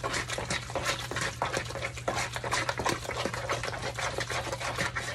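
Metal spoon stirring a thick mix of ground beef and Rotel tomatoes in a plastic mixing bowl: a steady run of quick wet scrapes and clicks.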